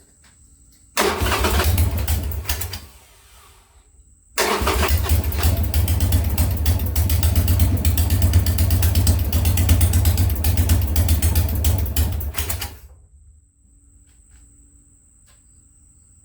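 Two attempts to start a Harley-Davidson Sportster's V-twin engine: the starter turns it over for about two seconds, stops, then turns it over again for about eight seconds before it stops; it does not settle into running.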